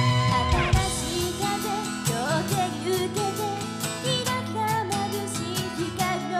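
Live J-pop idol song: young women's voices singing into handheld microphones over backing music with guitar.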